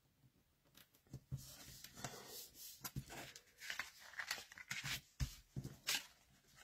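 Card stock and patterned paper being handled: faint irregular rustling, sliding and light taps of card, starting about a second in.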